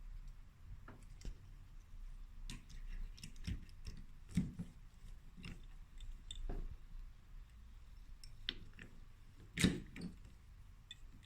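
Scattered faint clicks and knocks at an uneven pace, with two louder knocks about four and a half and nine and a half seconds in: small hard objects being handled, as in hand work with tools and parts.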